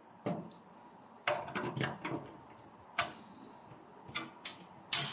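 Plastic circuit breaker being fitted into a metal breaker panel: irregular sharp clicks and knocks as it is handled against the box and pressed into place, the loudest near the end.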